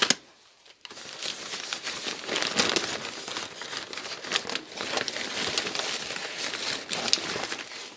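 Packing paper crinkling and rustling as it is unwrapped by hand, a steady run of crackles starting about a second in.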